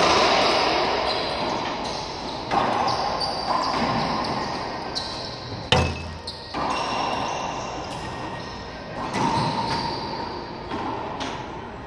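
Racquetball rally: a racquetball cracks off racquets and the court walls seven or so times, every second or two, each hit ringing out in the enclosed court's echo. The sharpest crack comes about halfway through.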